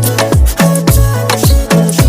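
Music: an up-tempo Marathi pop song, here without vocals, with a heavy beat and bass notes that drop in pitch about twice a second.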